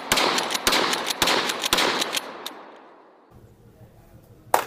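A shotgun fired in rapid succession, several shots a second for about two and a half seconds, the echo then dying away. A single sharp click near the end.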